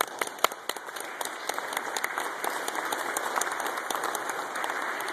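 Congregation applauding: scattered separate claps at first that fill in within about a second to steady, even applause.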